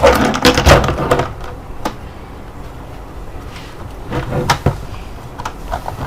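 Clicks and knocks of hard objects being handled: a quick clatter in the first second, then sparse single taps.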